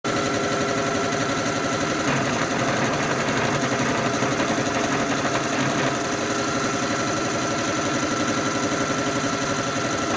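Motor-driven workshop machine or power tool running steadily, with a fast fine rattle. It starts abruptly.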